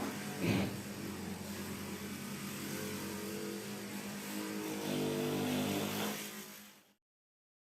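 A motor running with a steady hum, its pitch rising and shifting about four seconds in, then the sound cuts off suddenly near the end.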